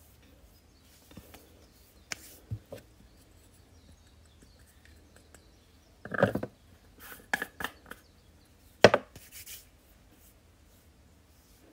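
Scattered light clicks and knocks of small makeup items being handled and set down on a table. There is a cluster of them about six seconds in, and the loudest single sharp click comes about nine seconds in.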